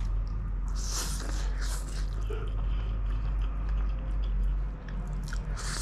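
Close-miked eating of spicy instant noodles: wet slurping and chewing with chopsticks, in short hissy bursts about a second in, again shortly after, and near the end, over a steady low hum.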